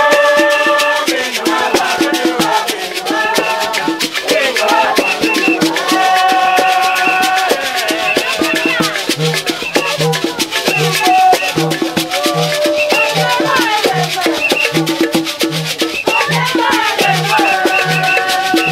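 Njang traditional dance music: voices singing held, bending phrases over constant shaken rattles. From about halfway in, a low pitched note repeats about every 0.7 s.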